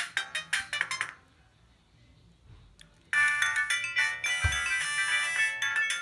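Siemens S55 mobile phone playing its built-in polyphonic ringtones through its loudspeaker: a fast run of notes stops about a second in, and after a pause of about two seconds another ringtone starts.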